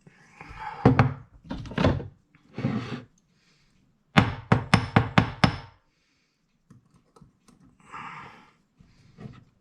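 Knocks and sharp clicks of metal tweezers against a mechanical clock movement as a stuck control arm is pushed into place, including a quick run of about six clicks partway through.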